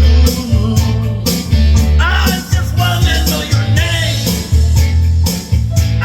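Band music with a steady beat: heavy bass and drums, with a melody line that bends in pitch over the top.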